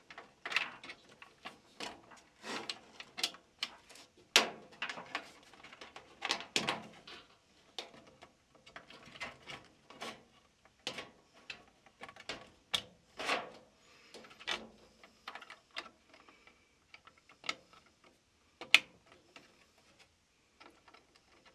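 Plastic wiring-harness connectors being handled and pushed onto a Whirlpool Duet dryer's electronic control board: irregular small clicks, scrapes and rustling of wires, with two sharper clicks, one about four seconds in and one near the end.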